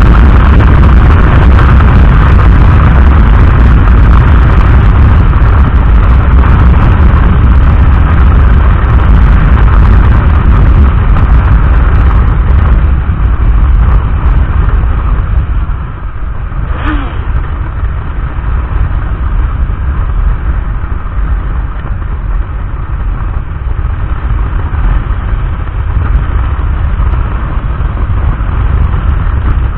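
Loud wind rushing and buffeting on the camera microphone while a motorcycle is ridden, with the engine under it. The rush eases about halfway through, as if the bike slows.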